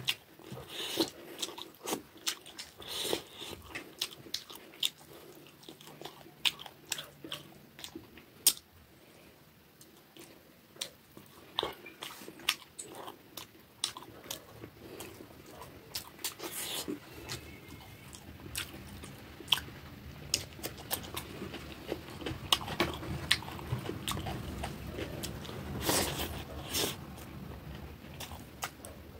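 Close-up eating sounds of rice and rohu fish curry eaten by hand: wet chewing and lip smacking with many irregular sharp clicks, plus fingers working rice on a plate. The chewing grows steadier and louder about halfway through.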